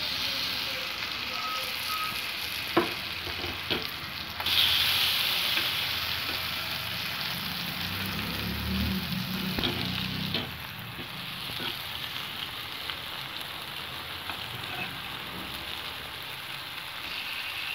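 Marinated fish pieces sizzling as they shallow-fry in a little oil on a flat pan, with a couple of spatula clicks against the pan as the pieces are turned. The sizzle gets louder about four and a half seconds in.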